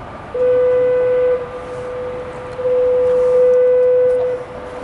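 Bridge foghorns sounding in thick fog: a steady low horn note, one blast of about a second followed by a longer blast of nearly two seconds.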